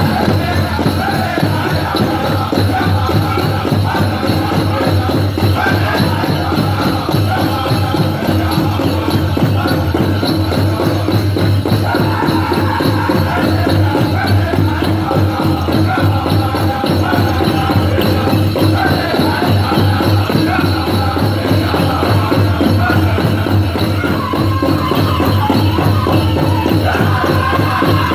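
Powwow drum group singing a chicken dance song over a steady beat on a big powwow drum, with the dancers' ankle bells jingling.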